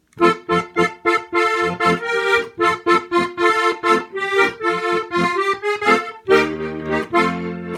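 Hohner Corona III three-row diatonic button accordion playing a quick run of short treble notes, then a held chord with bass for about a second near the end.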